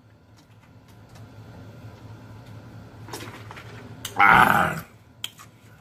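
A man gulping water from a large plastic jug, then letting out one short, loud, throaty sound about four seconds in as he finishes the drink.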